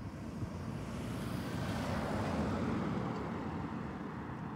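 A car driving past close by: tyre and engine noise that swells to a peak about halfway through, then fades as it moves off.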